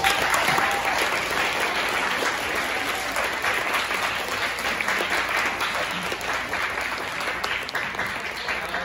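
Audience applauding: the clapping starts suddenly and holds steady, thinning slightly toward the end.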